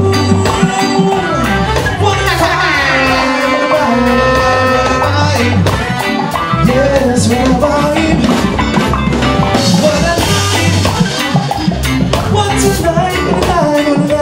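Live reggae band playing a song: drum kit beat, deep bass, electric guitars and keyboards, with a male singer's voice over them.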